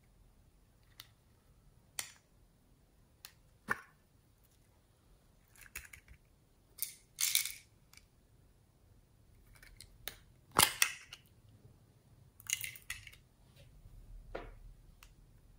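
Small plastic topping containers handled and opened: scattered clicks and taps, with a few louder plastic snaps about seven and ten seconds in. Beads and sprinkles rattle out onto the slime near the end.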